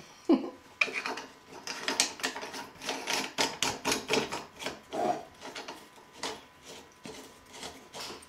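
Irregular clicks, taps and scrapes as hands work a lampshade's metal wire frame over a lamp socket and thread a plastic ring onto it.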